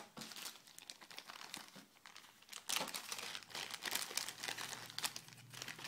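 Clear plastic bag crinkling as it is handled, in irregular bursts, loudest from about three seconds in to near the end.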